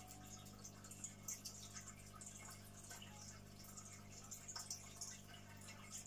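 Faint bubbling and dripping of aquarium aeration: air bubbles from an air stone rising and popping at the water surface in scattered small ticks, over a steady low hum.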